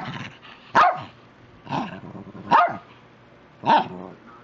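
An old small dog barking in play, five short sharp barks about a second apart.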